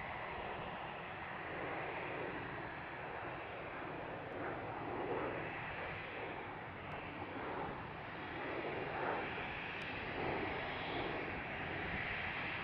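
Airbus A320-214's twin CFM56-5B turbofan engines running at low taxi thrust, a steady jet noise that swells and eases slightly as the airliner taxis by.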